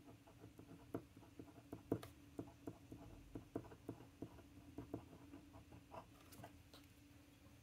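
Faint scratching and ticking of a glass dip pen's nib on a paper swatch card as small letters are written, in short irregular strokes several times a second.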